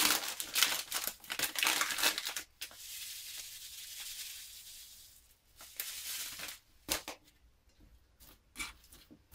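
Plastic bag crinkling as it is handled and opened, then puffed amaranth pouring out of the bag into a steel bowl with a steady hiss for a couple of seconds. After that come scattered scrapes and clicks of stirring in the bowl.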